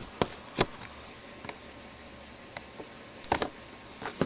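Scattered light clicks and taps from a knife and hands working the packing tape and flaps of a cardboard box. The loudest comes about half a second in, and a quick pair follows a little past three seconds.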